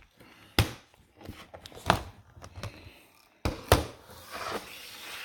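Handling noise as a laptop is turned over and worked on at a bench: about four sharp knocks and clacks of plastic on a hard surface, with some scraping and rustling near the end.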